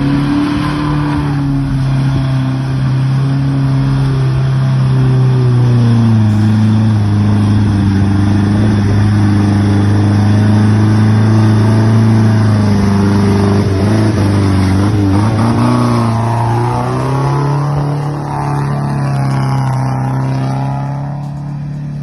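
Off-road vehicle engine running hard and revving, its pitch dipping a few seconds in and climbing again later.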